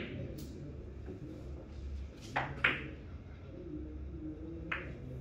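Carom billiard balls clicking against each other as they roll after a shot: a faint click early on, two sharper clicks close together about two and a half seconds in, and another near the end, over a low steady hum.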